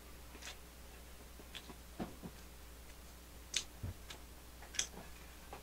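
Quiet room with a low steady hum and a few faint, irregular clicks and ticks.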